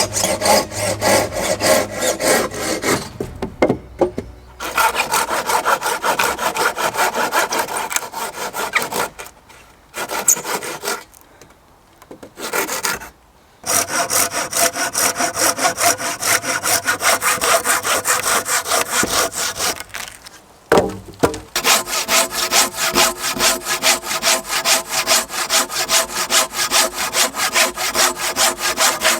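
Hand saw cutting through logs, with rapid, even back-and-forth strokes. The strokes stop briefly a few times before starting again.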